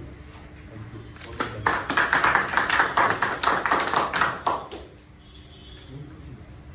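A small group of people clapping for about three seconds, starting about a second and a half in and fading out near the end.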